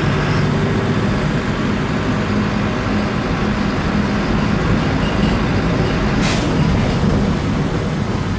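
City bus engine running as the bus drives, heard from inside the passenger cabin as a steady drone; a short hiss about six seconds in.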